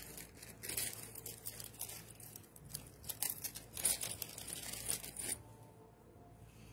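Packaging crinkling and tearing as a piece of jewelry is unwrapped: an irregular run of crackles and rips that stops about five seconds in.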